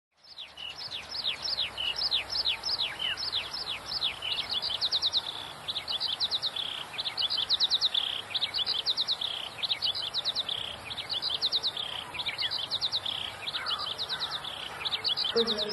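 Birds chirping in high, quick notes. Rapid downward-sweeping chirps come first, then short bursts of several fast notes that repeat about once a second, over a faint steady hiss.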